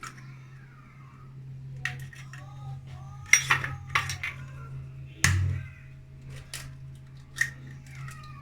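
Eggs cracked on the rim of a bowl and dropped in, with clinks and knocks of the shells and dishes. There are several sharp taps, and one heavier knock with a dull thud about five seconds in.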